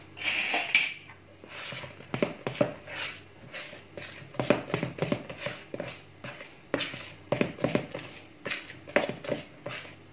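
Spoon beating thick flour-and-milk dough in a plastic mixing bowl: runs of quick knocking and scraping strokes, with a louder scrape at the start.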